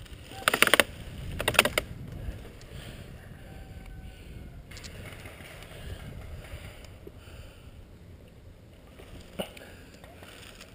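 Two short, loud bursts of rapid automatic airsoft gunfire close by, each about half a second long, in the first two seconds. Then low wind rumble on the microphone, with one sharp click near the end.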